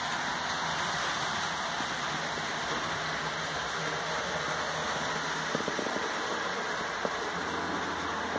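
HO scale model train running on the layout: a steady whirring, rolling noise with a low hum, and a few light clicks about five to seven seconds in.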